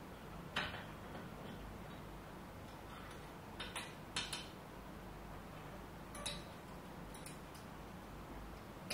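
Metal clinks and taps from handling a drill press vise and a thin aluminium workpiece: about half a dozen short, sharp clicks scattered over a faint steady hum.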